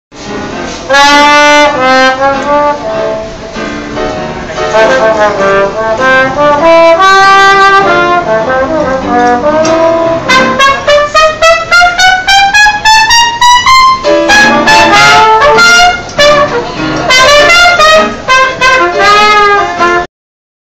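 Small live jazz band playing: trumpet and trombone lead over a piano. Partway through comes a long rising slide in pitch that breaks off suddenly, and the music stops abruptly near the end.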